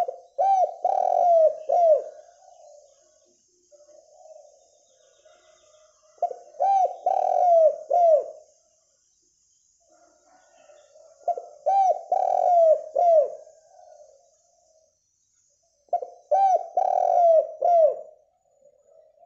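Spotted dove (derkuku) cooing. Four song phrases come about five seconds apart, each a quick run of about four coos led in by a softer coo.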